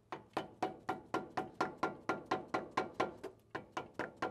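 Dead blow hammer tapping a block of wood held against a truck's lower ball joint: a quick, even run of light knocks, about four a second. The taps nudge the new ball joint into line with the hole in the steering knuckle.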